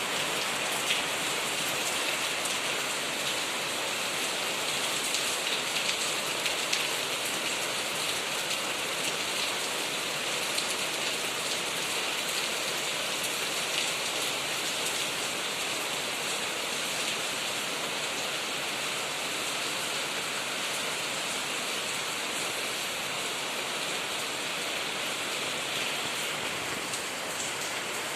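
Steady rain, pattering on surfaces with scattered individual drop hits.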